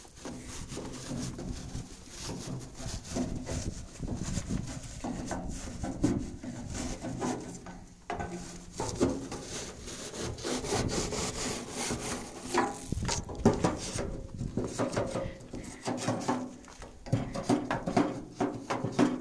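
Repeated scraping and rubbing inside a wood-burning stove as soot is cleaned out of its firebox, in uneven strokes throughout.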